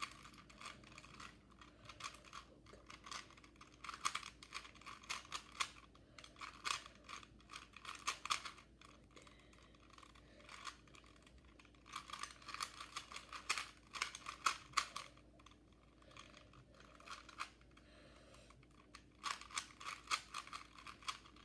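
Rubik's Cube being turned quickly by hand: rapid runs of plastic clicking and clattering as the layers are twisted, broken by a couple of short pauses.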